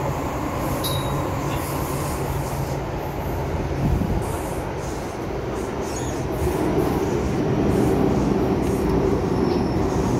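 MTR M-Train subway car running, heard from inside the car: a steady rumble of wheels on rails and running gear, growing louder about six seconds in.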